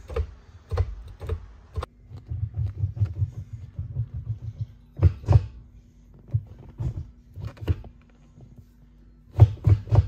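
MGW short-throw shifter lever on a Ford Mustang GT's 5-speed manual gearbox worked by hand, giving a string of knocks and clicks as it is rocked and snapped through the gates. There is a quick light rattle about two seconds in, and the sharpest clunks come a little past five seconds and again near the end.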